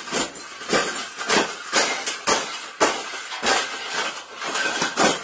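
A rapid series of sharp knocks and clinks, about three a second, like something hard being struck over and over.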